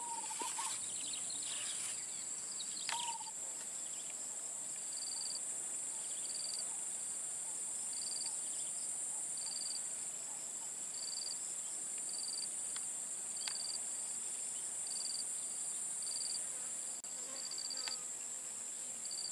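Insects droning steadily at a high pitch, with a short high chirp repeating about every one and a half seconds from around five seconds in.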